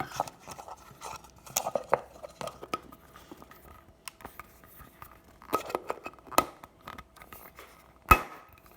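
Clicks, clinks and light rustling of a metal Poké Ball tin and its trading card packs being handled, with one loud sharp clack about eight seconds in.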